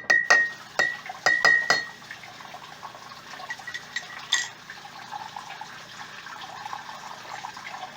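A metal spoon clinking quickly against the inside of a coffee mug while stirring, stopping about two seconds in. A steady watery hiss of liquid follows.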